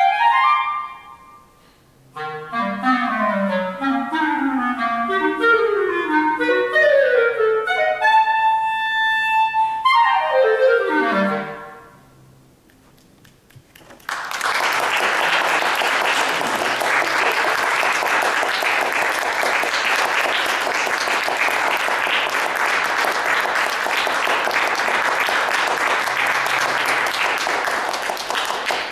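Unaccompanied clarinet playing quick rising and falling runs with a held high note, closing with a fast falling run about twelve seconds in. After a brief pause an audience applauds steadily, dying away near the end.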